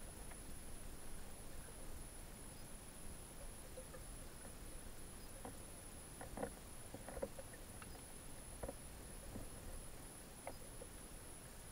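Muffled underwater ambience picked up by a submerged camera: a steady low water rumble under a faint high whine, with a few soft, scattered clicks and knocks in the second half.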